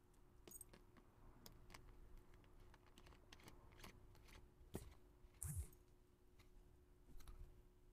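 Faint clicks and crinkles of a plastic soda bottle being handled and its screw cap turned, with a sharper click and a short rustle near the middle.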